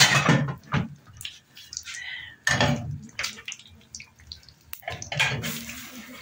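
Brik pastry frying in shallow hot oil in a pan: a sizzle with irregular crackles and pops.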